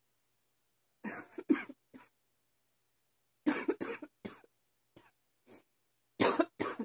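A woman coughing in short, separate bouts: three or four coughs about a second in, a harsher run of coughs around three and a half seconds, two faint ones after, and two strong coughs near the end. She puts the coughing down to allergies.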